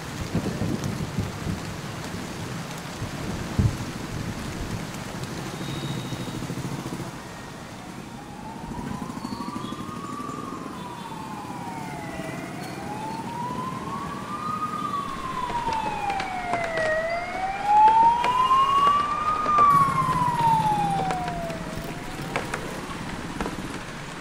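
A siren wails over steady rain and wet-road traffic noise. It comes in about eight seconds in and rises and falls slowly, about three full swells of four to five seconds each. It is loudest in the last swell and fades out a couple of seconds before the end.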